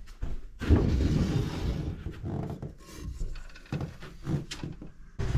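Wooden shoji screen sliding open along its track: wood rubbing on wood for about a second, starting just under a second in, followed by a few light knocks.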